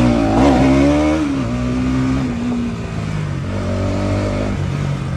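Bajaj Pulsar NS200's single-cylinder engine running, its revs rising and falling in the first second or so, then holding steadier.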